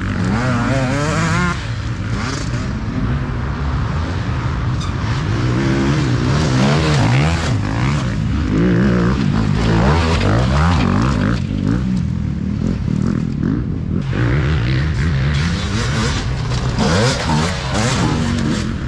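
Yamaha YZ250F four-stroke single-cylinder enduro bike engine revving hard under riding, its pitch rising and falling constantly as the throttle is worked.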